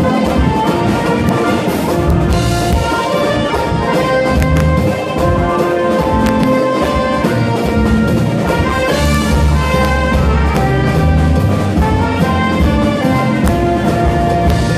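Frevo played live by a horn band, with saxophones, trumpets and trombones carrying the tune over surdo and other drums, with no pause.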